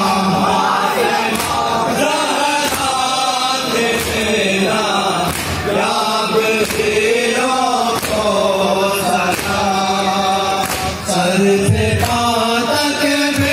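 Men chanting a Shia mourning noha together, with rhythmic matam chest-beating striking about every 1.3 seconds to keep the beat.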